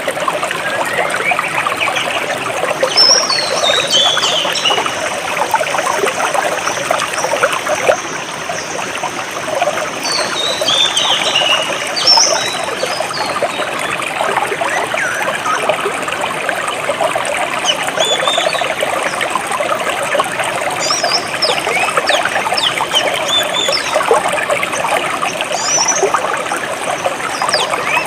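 Stream water trickling and flowing steadily, with birds chirping over it: a descending run of high notes a few seconds in, another about ten seconds in, and scattered short chirps in the second half.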